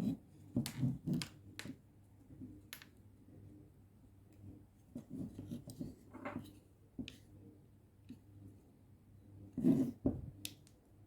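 Scattered clicks, taps and short scrapes of a screwdriver and hand tools working on the door lock mechanism and its plastic parts inside a car door, over a faint steady hum. There is a louder knock at the start and another about ten seconds in.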